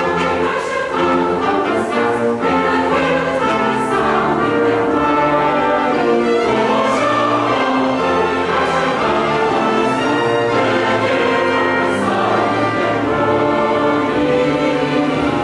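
Large mixed choir of men's and women's voices singing a sacred anthem in parts, with instrumental accompaniment.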